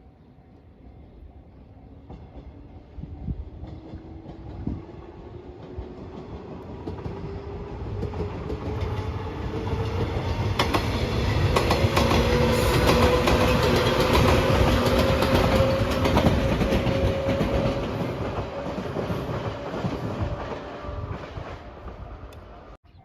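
A train passing over a level crossing. It builds up over about ten seconds, is loudest around the middle with wheels clattering over the rail joints and a slowly rising motor note, then fades and cuts off suddenly near the end.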